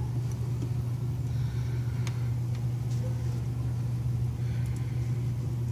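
Kubota BX25D subcompact tractor's three-cylinder diesel engine running steadily, a low, even drone, with a few faint clicks about two seconds in.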